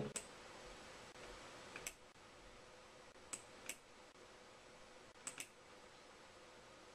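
Near silence broken by a few short, sharp clicks: one at the start, then three close pairs of clicks spread through the rest.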